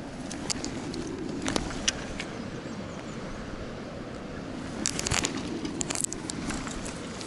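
Footsteps in rubber boots on wet, muddy grass, with dry grass and clothing rustling and scattered crackles, a cluster of them about five seconds in, over a steady low rumble of wind on the microphone.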